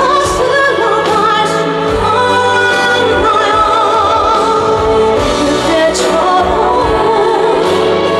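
A female singer singing a slow pop ballad live with band accompaniment, holding notes with vibrato.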